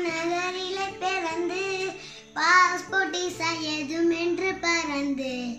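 A young girl singing in Tamil, holding long notes, with a short break about two seconds in.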